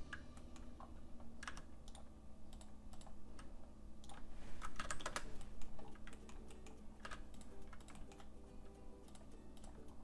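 Quiet, irregular computer keyboard typing: scattered keystroke clicks, busiest around the middle.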